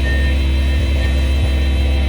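Komatsu PC500LC excavator's diesel engine running at a steady pitch under load, with a steady high hydraulic whine above it.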